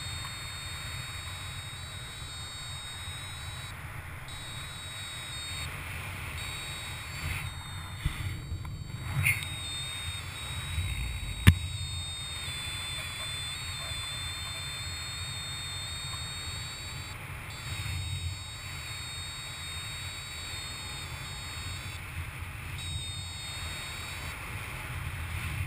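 A paragliding variometer sounding its electronic tone, which steps up and down in pitch and breaks off now and then as the vertical speed changes, over a steady rush of wind on the microphone. A single sharp click about eleven seconds in.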